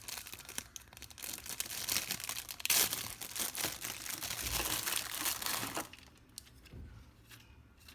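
Packaging being opened by hand: crinkling and tearing, loudest about three seconds in, dying down about six seconds in.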